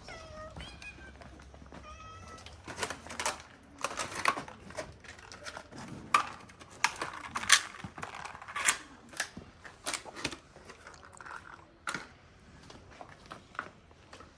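A cat meows twice, short bending calls, and then a run of sharp, irregular clicks goes on for several seconds before fading near the end.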